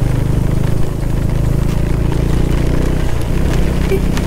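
Motorcycle engine running steadily at low road speed, heard from the rider's seat, with a wash of spray and tyre noise from the rain-flooded road.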